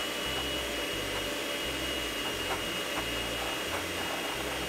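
Electric hand mixer running steadily with a thin high whine, its beaters whipping egg whites in a bowl, the whites still at the frothy stage.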